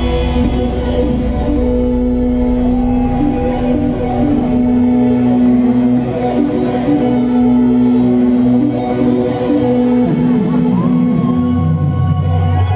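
Loud dance music: held notes over a heavy bass line, the bass shifting to a new note near the end.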